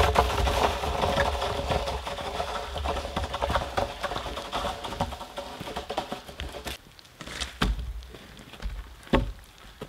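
Footsteps crunching through wet snow while two long cut poles drag behind, with many small crunches and knocks. After about two-thirds of the way in, the crunching stops, leaving a few separate knocks and thumps as a log is handled on the snow.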